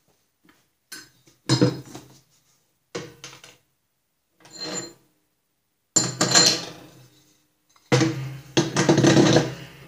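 Metal clanks and scrapes from handling steel mower-deck parts, the pressed-steel brake drum being lifted and set over the spindle. A few short knocks in the first half, then two longer, louder stretches of clattering about six and eight seconds in.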